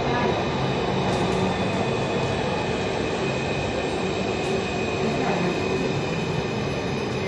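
Santiago Metro AS-02 train running past a station platform, heard from inside the car: a steady rushing noise with steady whining tones, and no change in loudness.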